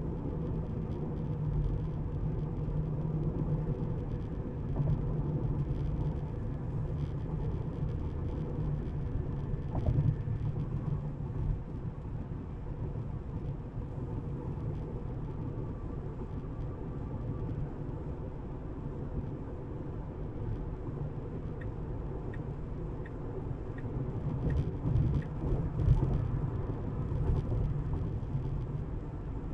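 Steady low road and tyre rumble inside a moving Tesla's cabin, with no engine note from the electric drive, and a few louder bumps about ten seconds in and near the end.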